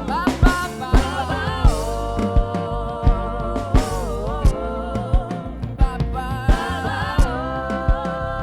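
Gospel worship band playing long held notes over a steady drum beat.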